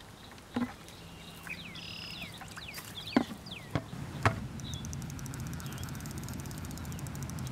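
A few sharp knocks and clunks from handling a plastic bucket and its lid, with short bird chirps over a low steady hum that builds up. A fast run of faint ticks comes in about halfway through.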